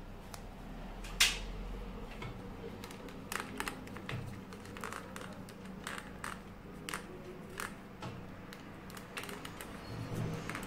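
Black PVC electrical tape being wrapped by hand around a screw-terminal connector block on corrugated plastic conduit: irregular crackles and clicks of the tape and handling, with one sharper, louder click about a second in.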